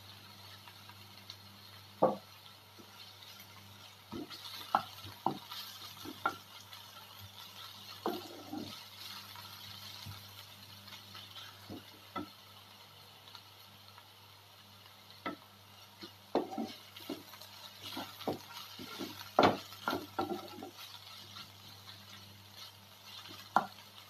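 Wooden spatula stirring and scraping onions and ginger-garlic paste in a nonstick frying pan, with irregular knocks against the pan, loudest about two seconds in and again near the end. A light sizzle of frying runs beneath: the paste is being cooked until its raw pungent smell goes.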